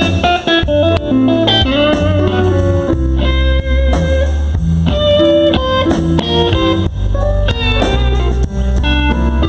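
Slow blues on electric guitar: quick lead lines and bent notes over a band backing with a steady bass line.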